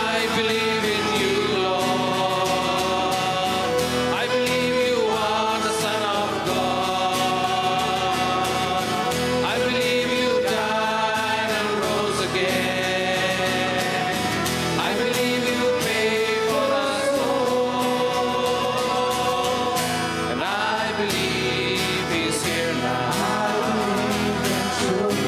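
Worship song: a group of voices singing long held notes over instrumental accompaniment.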